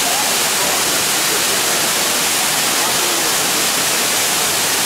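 Waterfall cascading and splashing over rock close by: a loud, steady rushing hiss of falling water.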